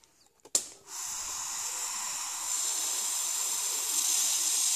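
Breath blown through the drinking-straw tubes of a homemade putt-putt boat's boiler: a long, steady hiss that starts about a second in and runs without a break. A sharp click comes just before it.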